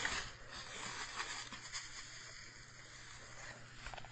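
Faint rustling and crinkling of packaging, a plastic bag and newspaper, being handled and pulled open, with a few small crackles over a low steady hum.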